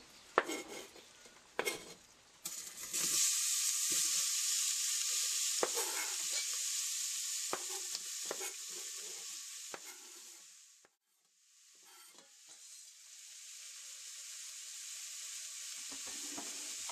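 Chopped onion and celery sizzling as they go into hot olive oil in a stainless steel pot: the sizzle starts suddenly a couple of seconds in, with scattered knocks of a knife scraping diced celery off a cutting board into the pot. The sizzle drops out briefly near the middle and then builds again.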